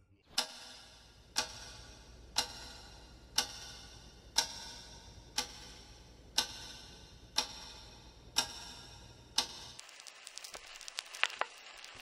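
Clock ticking once a second, ten ticks over a faint low hum. Near the end it gives way to vinyl record crackle with a few louder pops.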